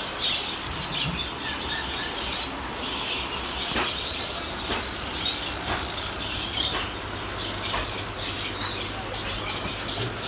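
Many small caged birds chirping over a steady background hubbub, with a few sharp clicks.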